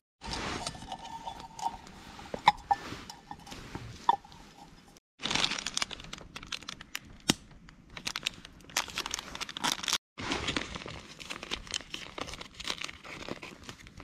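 Crinkling and tearing of a drip-coffee bag's sachet being handled and opened, then the paper filter being spread open, in three short stretches with brief cuts between them. A couple of sharp taps sound in the first few seconds.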